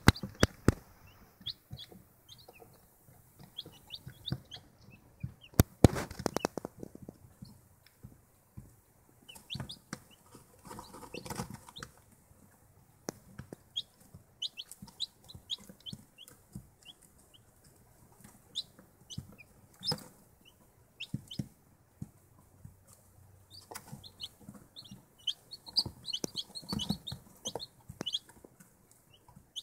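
Baby chicks peeping, short high cheeps coming in scattered runs, with a few sharp knocks, the loudest about six seconds in.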